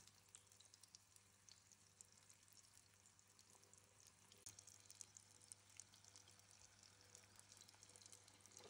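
Breaded cauliflower steak frying in shallow oil in a nonstick pan: a faint, steady sizzle with fine crackling.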